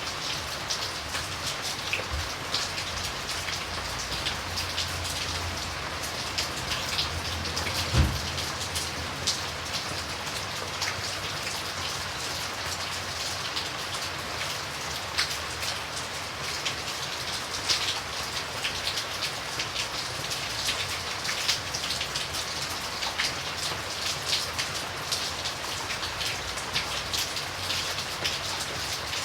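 Steady rain falling, with many individual drops ticking close by over the continuous hiss. One louder thud about eight seconds in.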